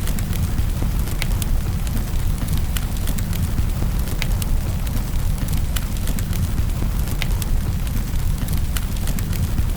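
Wood fire in a fireplace crackling, with sharp irregular pops over a steady low rumble.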